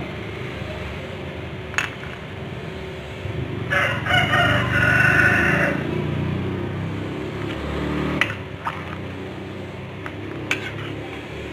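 A rooster crows once, a single call of about two seconds near the middle. A metal ladle clinks against the pan a few times before and after.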